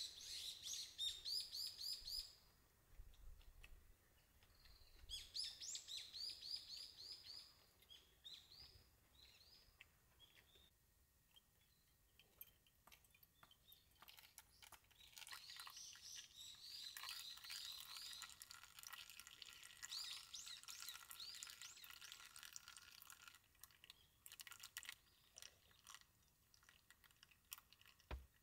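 Small bird chirping in quick runs of high notes, in three bouts with quiet gaps between, the longest in the second half.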